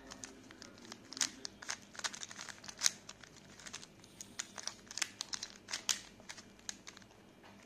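Plastic clicking and clacking of a bubble cube, a 3x3 twisty puzzle built from coloured balls, as its layers are turned quickly by hand. The clicks are quick and irregular, a few louder ones standing out.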